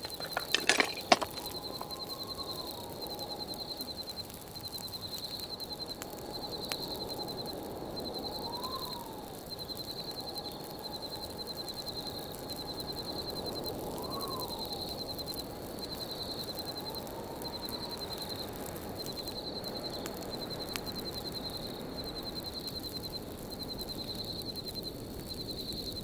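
Winter wind blowing steadily with a whistling tone that swoops up and down a few times, over a high, evenly pulsing trill. A few loud sharp knocks in the first second, and faint pops of a campfire now and then.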